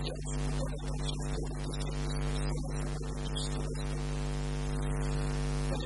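Steady electrical mains hum, a low buzz with a ladder of evenly spaced overtones, over a background hiss.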